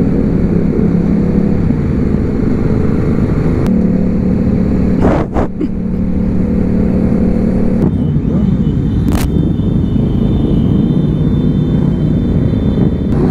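Motorcycle engine running at a steady cruising speed, heard from the rider's own bike among a group of other motorcycles. There is a brief sharp dip in the sound about five seconds in, and the engine note becomes less steady in the last few seconds.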